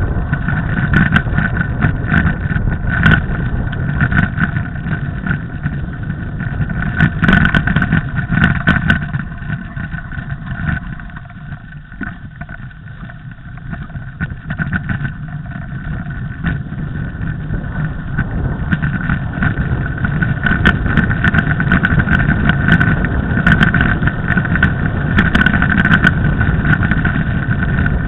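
Riding noise from a mountain bike on a snowy road: wind rushing over the camera's microphone and tyre rumble, with scattered knocks from bumps. It eases off for a few seconds in the middle, then builds again.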